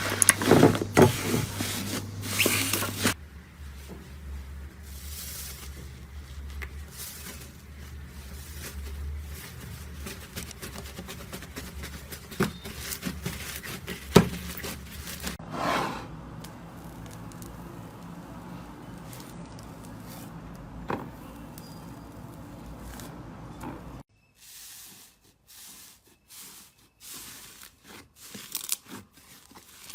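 Slime being pressed and stretched by hand, giving sticky crackling, clicking and tearing sounds. The sounds come in several short takes that change abruptly about three, fifteen and twenty-four seconds in.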